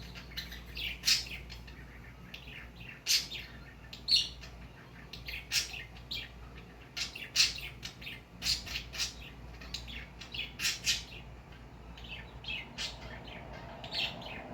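Cockatiel giving short chirps and squawks, repeated irregularly.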